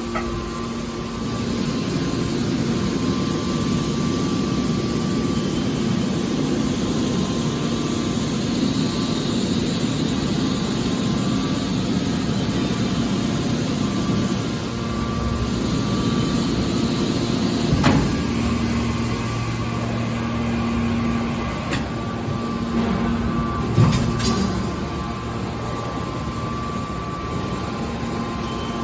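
Horizontal hydraulic metal baler running, its hydraulic power unit giving a steady hum, with a few sharp metallic knocks partway through.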